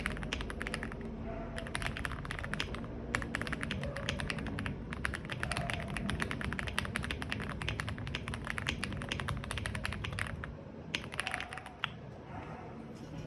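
Typing on a modded RKM75 mechanical keyboard with linear Gateron Milky Yellow Pro switches and Akko SAL-profile keycaps: quick runs of keystrokes with short pauses between them, stopping near the end.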